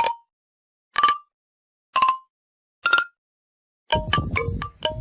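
Four short, bright notes, one a second, with silence between them; then, near the end, a quick run of marimba-like notes begins.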